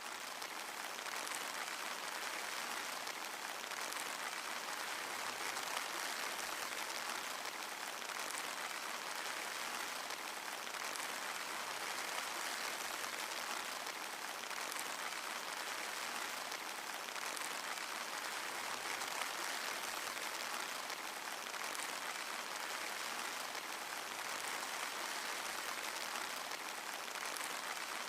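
Steady rain falling, an even hiss of many drops, with a few sharper single drops standing out now and then.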